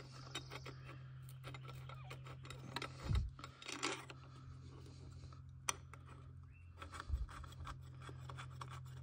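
A passenger-peg delete bolt being unscrewed by hand from a motorcycle's rear frame: light scraping, rubbing and small clicks. There are two dull bumps about three and seven seconds in, over a steady low hum.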